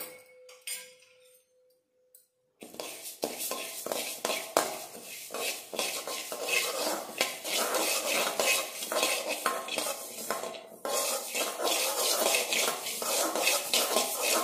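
A spatula scrapes and stirs dry split moong dal around a metal kadai, a fast, continuous run of scrapes with the grains rattling on the bare metal as they dry-roast without oil. It starts after about two and a half seconds of near quiet and breaks off briefly about eleven seconds in.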